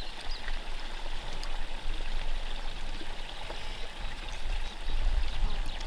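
Running water rushing steadily, with a low rumble that swells about four seconds in.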